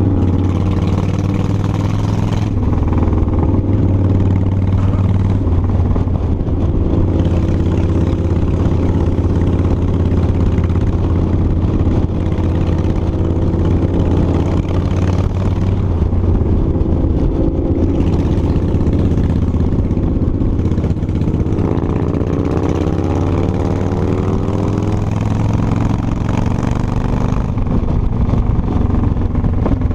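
Cruiser motorcycle engine running under way at road speed, its note rising as the bike accelerates about two-thirds of the way through. A hiss of wind over the microphone comes and goes.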